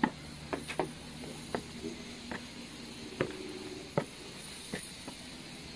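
Footsteps in sneakers climbing concrete stairs: short, sharp steps at an uneven pace, about one every half to three-quarters of a second.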